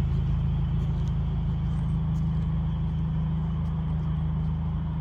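A car driving, its engine and road noise making a steady low drone.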